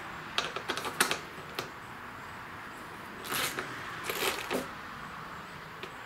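Irregular light clicks and scrapes of a hand-turned socket and extension on the fuel pump's coarse bolts, a few clicks about a second in and two short clusters of scraping clicks past the middle.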